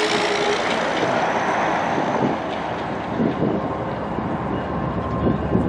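Wind buffeting the microphone over steady vehicle noise from the road.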